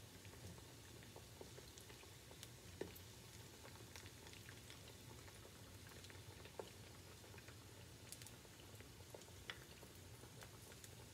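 Faint sizzling of plantain slices frying in coconut oil in a skillet, with scattered small pops and a few sharper clicks about three, six and a half and nine and a half seconds in.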